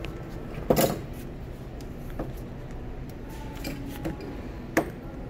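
Hand tools clattering and clicking as someone rummages through a tool bag: a loud clatter about a second in, a few lighter clicks, and a sharp knock near the end, over a steady low background hum.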